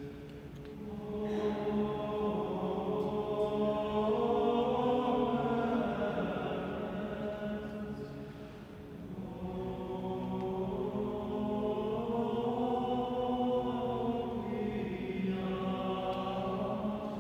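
All-male schola singing sacred chant a cappella, several sustained voice parts moving slowly together. Two long phrases, with a short breath between them about halfway through.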